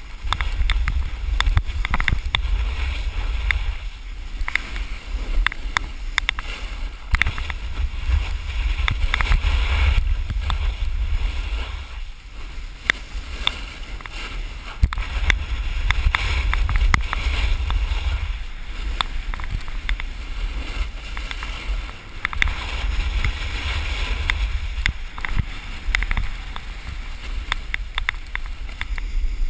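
Wind buffeting the microphone of a body-mounted action camera on a snowboarder riding fast downhill, a deep rumble that swells and drops every few seconds. Underneath, the snowboard scrapes and chatters over hard-packed snow.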